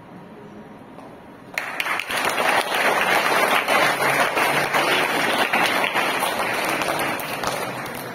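Audience of schoolchildren applauding, breaking out suddenly about a second and a half in as dense, steady clapping after a quiet start.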